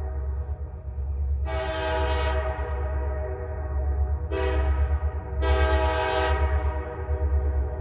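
RJ Corman diesel locomotive's multi-chime air horn sounding from the distance for a grade crossing: a long blast, a short one, then a final long one, over a steady low rumble.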